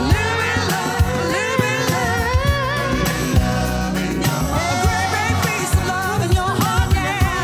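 Background music: a sung song with a lead voice over a steady beat and bass.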